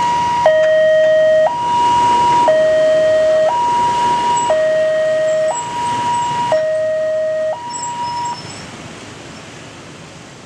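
Railway level-crossing warning alarm sounding an electronic two-tone hi-lo signal, switching between a high and a low tone about once a second, then stopping about eight seconds in. Under it and after it comes the noise of the waiting motorcycle traffic.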